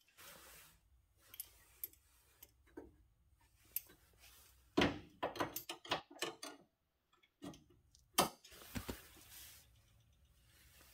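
Scattered clicks, clinks and knocks of hand tools and sheet-metal repair pieces being handled at a truck's cab corner, with a cluster of sharp clicks about five seconds in and another about eight seconds in.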